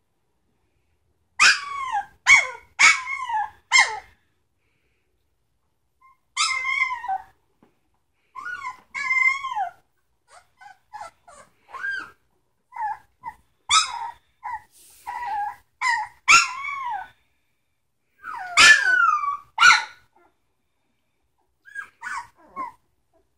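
Three-week-old Samoyed puppies giving short, high-pitched cries, many falling in pitch. They come in clusters, the first a quick run of four about one and a half seconds in, with quiet gaps between.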